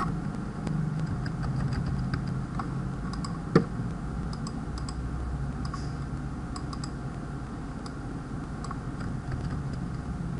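Computer keyboard keys and mouse buttons clicking, scattered light taps with one sharper click about three and a half seconds in, over a steady low hum.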